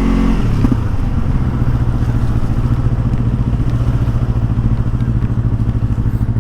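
Yamaha R25 parallel-twin motorcycle engine settling to low, steady revs, its pitch dropping slightly just after the start and then holding with an even, pulsing exhaust note.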